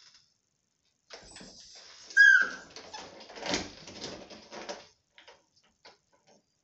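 A tied puppy gives one short, high yelp about two seconds in, amid a few seconds of scuffling and chain rattling as it struggles against its tether, then a few faint clicks.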